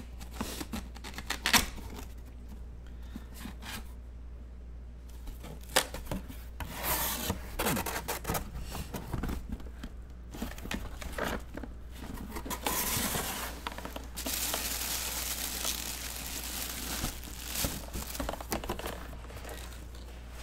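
Cardboard box of an autographed football helmet being cut open and unpacked by hand: its seal sticker cut, then cardboard and packing tearing, scraping and crinkling, with scattered knocks and handling noise.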